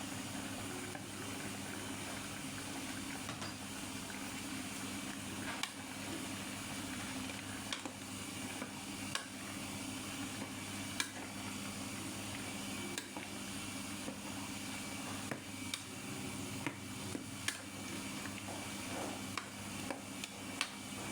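A pot of Isan bamboo-shoot curry cooking and being stirred, with scattered clicks of a utensil against the pot over a steady low hum.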